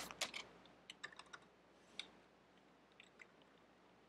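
Faint, irregular keystrokes on a computer keyboard: a few scattered taps in small clusters with pauses between them as a command is typed.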